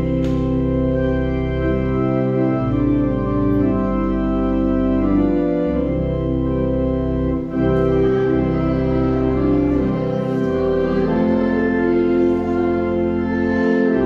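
Church organ playing slow sustained chords over a held bass line that moves to a new note every second or two, with a brief break between phrases a little past halfway.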